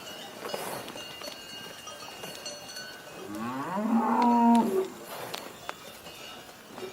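A cow mooing once, a call of about a second and a half that rises in pitch and then holds steady.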